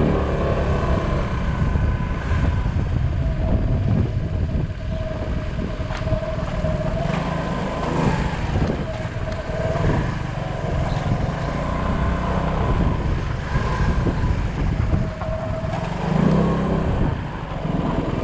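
Motor scooter engine running at low speed while being ridden, a steady rumble with a thin whine that wavers slightly in pitch.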